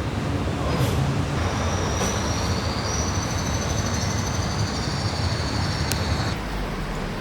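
Rail car running with a steady low rumble and a high-pitched wheel squeal that starts about a second and a half in and cuts off suddenly near the end.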